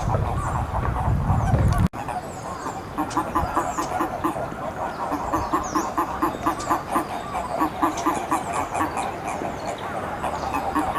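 Eastern Japanese common toads calling in a breeding pond: trains of short, rapid, low croaks, about five a second, overlapping from several toads. Small birds chirp faintly above them.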